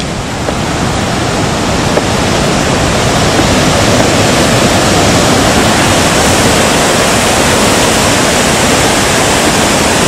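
Rushing water pouring over a tiered concrete weir in a mountain river: a loud, steady roar of falling water that grows louder over the first few seconds, then holds.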